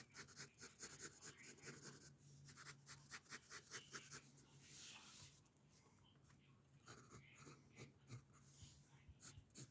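Graphite pencil scratching on paper in quick, short sketching strokes. About five seconds in there is a longer, smoother stroke, then a brief pause before the quick strokes resume.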